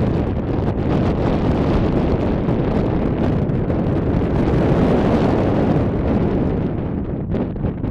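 Wind buffeting the camera's microphone: a steady low rumble that swells about five seconds in and eases near the end.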